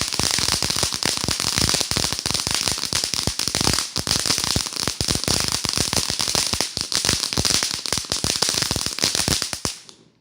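Consumer 'jalapeño popper' firework going off: a dense, rapid run of sharp crackling pops that keeps up for nearly ten seconds, then stops abruptly near the end.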